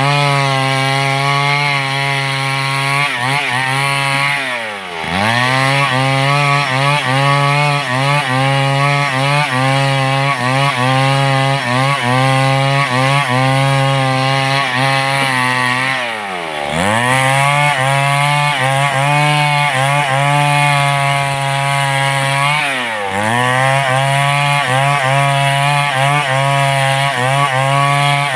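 Large two-stroke chainsaw running at high revs, cutting wood. Its pitch dives sharply and climbs straight back three times, about 5, 16 and 23 seconds in.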